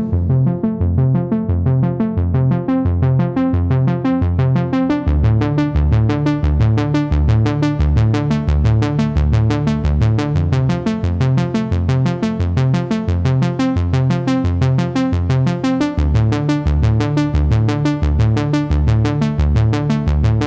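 Electronic background music with synthesizer and a steady drum-machine beat; the sound grows brighter over the first few seconds.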